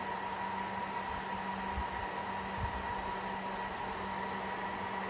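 HPE ProLiant DL360 Gen10 server's small cooling fans running at high speed at power-on: a loud, steady rush of air with a constant whine.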